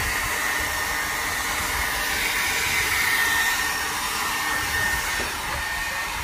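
Handheld hair dryer running steadily, a rush of air with a steady high whine, blowing hot air onto a plastic fender flare.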